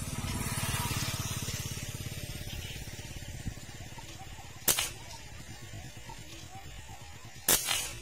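Two sharp cracks from an air rifle being fired, about three seconds apart, the second a little longer. Under them is a low rumble that swells and fades in the first few seconds.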